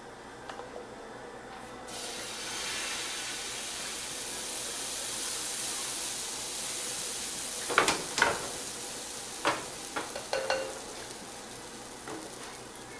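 Pancake batter poured onto a hot, buttered grill pan and sizzling, the hiss starting about two seconds in and dying down near the end. A few light knocks and clinks of a measuring cup or utensil come about halfway through.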